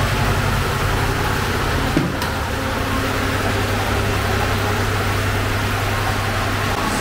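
Steady mechanical drone of bakery equipment: a low hum under a constant noisy rush, with one sharp knock about two seconds in.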